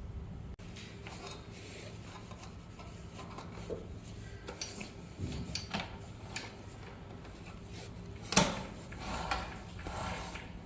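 Parts and tools being handled during disassembly: scattered small clicks and rubbing, with one loud knock about eight seconds in.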